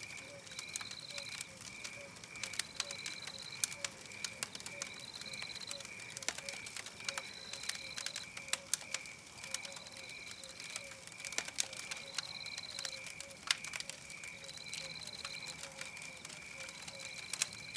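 Wood campfire crackling, with irregular sharp pops. Behind it runs an evenly repeating night ambience: a high chirping pulse about twice a second, and a short higher trill every two seconds or so.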